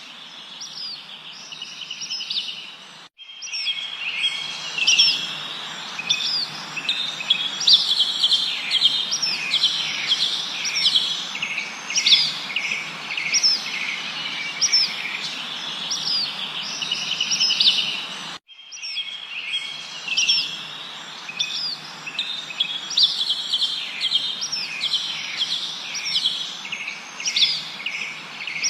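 A dense chorus of songbirds chirping, trilling and whistling over a steady background hiss. The sound cuts out for an instant twice, where a looped recording restarts.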